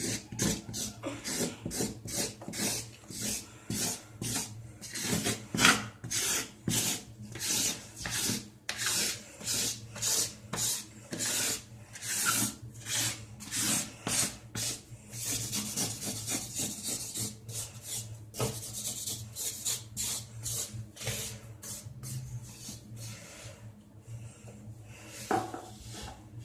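Repeated scraping strokes, about one or two a second, as a spilled cornstarch-and-soap slime mess is scraped up. The strokes come thick and regular for the first half, then grow sparser and weaker.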